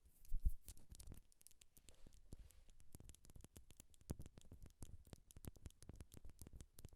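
Close-miked ASMR tapping: quick, light taps and clicks on or near the microphone, several a second and irregular, with one heavier thump about half a second in.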